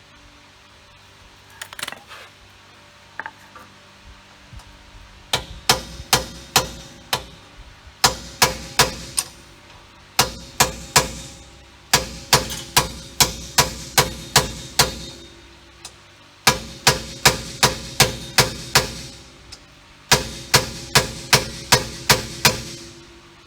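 Hammer beating on a socket extension held against bolts threaded into a rear wheel bearing hub, driving the seized hub assembly out: sharp metal strikes with a ringing after each, in volleys of about three strikes a second separated by short pauses.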